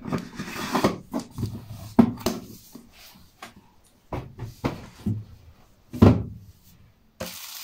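Cardboard advent calendar box and its pull-out drawer being handled: rustling, scraping and a string of knocks, with two louder thumps about two seconds in and again near six seconds.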